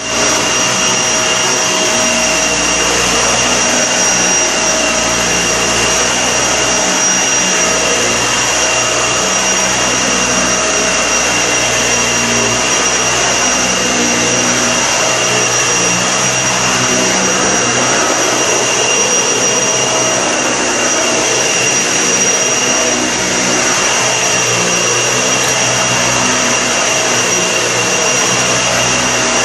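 Vacuum cleaner running steadily on carpet, a constant rush of air under a high, steady motor whine.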